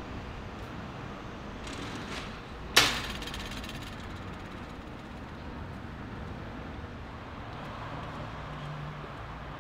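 Steel mesh gate clanging shut once about three seconds in, a sharp metal bang with a short ring after it, preceded by a couple of soft knocks. A steady background rumble runs underneath.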